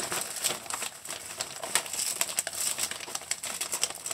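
Clear plastic bag crinkling and crackling as hands handle it and rummage inside.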